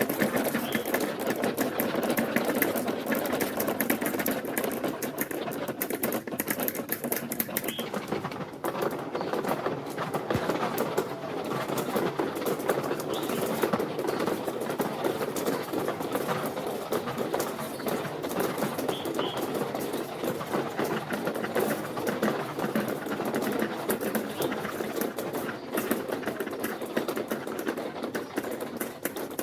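Many marbles rolling and clattering along a plastic marble run track, a continuous dense rattle of small clicks.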